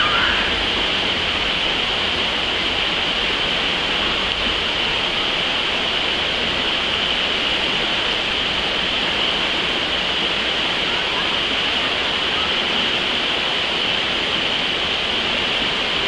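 Steady rush of a mountain creek's whitewater rapids: an even, unbroken hiss of water over rocks.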